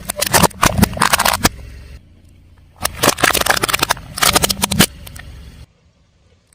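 A car tyre rolling over and crushing crunchy objects: two bursts of dense crackling and snapping, the second starting about three seconds in, over a low vehicle rumble. The sound drops away abruptly near the end.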